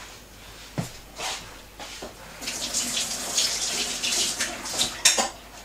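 Kitchen tap running into the sink for about two and a half seconds, the water splashing. There is a light knock about a second in, and a sharper, louder knock near the end just after the water stops.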